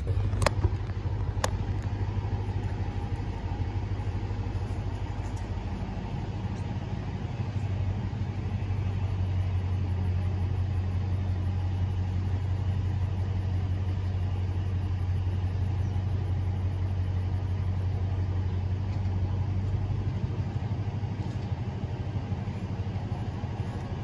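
Toyota Tundra's 5.7-litre V8 idling steadily, a low even hum. Two sharp clicks sound about half a second and a second and a half in.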